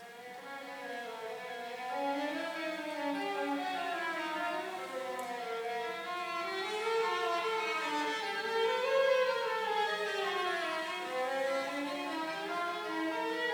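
Background music: several bowed string instruments, violin-like, playing slow gliding melodic lines.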